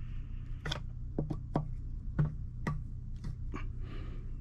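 Flathead screwdriver prying at a stuck windshield washer pump in its reservoir grommet: about eight sharp, irregular clicks and scrapes.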